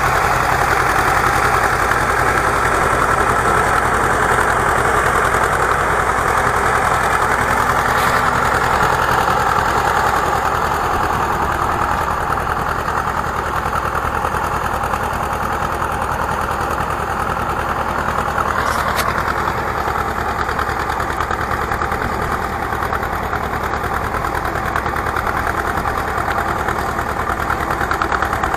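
Small tractor's engine running steadily under load as it pulls a horse-drawn potato digger through the soil, growing a little fainter after about twelve seconds as the tractor moves away.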